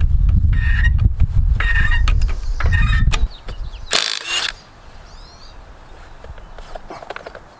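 Wind buffeting the microphone while a hydraulic floor jack is pumped by its long handle, with a squeaky creak on each stroke about once a second. The pumping stops about three seconds in. A short hiss follows about a second later, then faint bird chirps.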